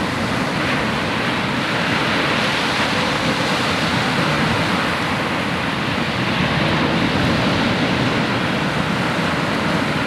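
Sea surf: small waves breaking and washing up a sandy beach, a steady rushing noise.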